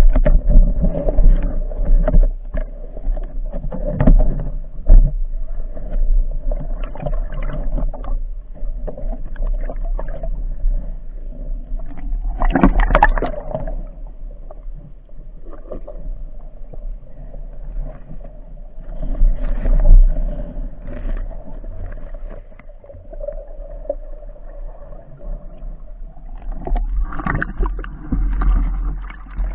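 Muffled water sounds picked up by an underwater action camera: sloshing and gurgling with a faint steady hum, scattered knocks, and a louder splashy burst about halfway through.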